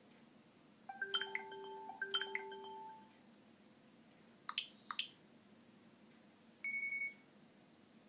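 Nokia X3-02 built-in message alert tones played through the phone's loudspeaker: a two-part electronic chime, then two quick sweeping blips, then one short single beep near the end.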